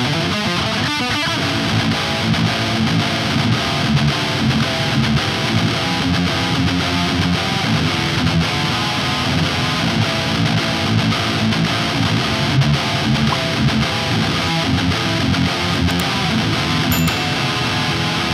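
Ibanez Premium AZ427P1PB seven-string electric guitar played through an amplifier, a continuous stream of picked notes and riffs.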